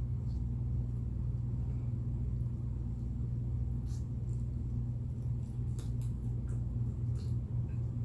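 Steady low hum with a few faint short clicks, typical of quiet chewing.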